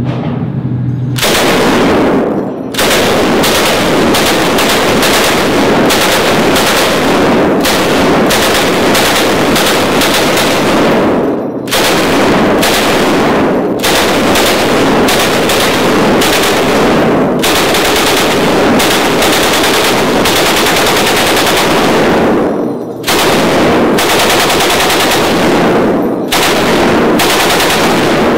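M60 belt-fed 7.62×51mm NATO machine gun firing full-auto in long sustained bursts, broken by a few short pauses, with the echo of an indoor range.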